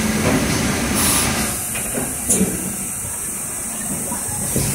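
Thermoforming machine running: a steady mechanical clatter and hum, with short hisses of compressed air twice, about one second and about two seconds in.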